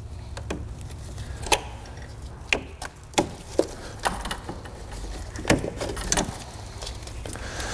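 Hands working on an engine bay's wiring and a bracket: scattered sharp clicks and knocks, about ten of them at uneven spacing, from parts and connectors being moved and tapped, over a faint low hum.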